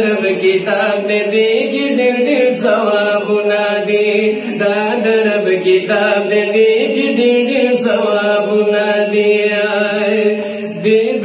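Two men's voices chanting a Pashto naat, a devotional poem in praise of the Prophet, in a sustained, melodic line without instruments.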